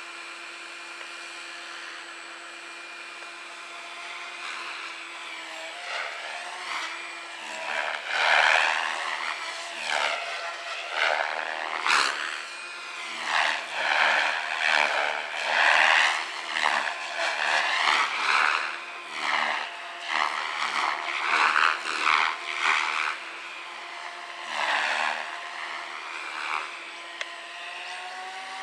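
Electric SAB Goblin 570 RC helicopter under power, its headspeed held by the ESC governor. For about six seconds it gives a steady motor and rotor whine. Then loud rotor swishing rises and falls repeatedly as the helicopter moves about.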